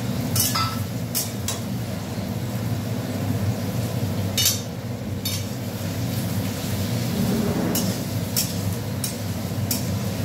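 A spatula stirring prawns frying with onion and tomato in a pan, with about eight sharp clinks of metal on the pan over a steady low hum.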